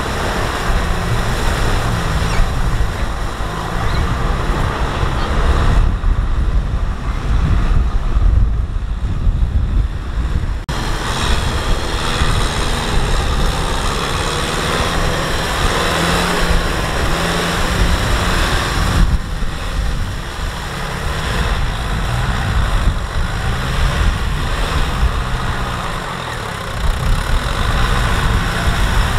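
Kubota M6040SU tractor's diesel engine running under load as it drags a tillage implement through deep mud. The sound changes abruptly twice, about a third and two-thirds of the way through.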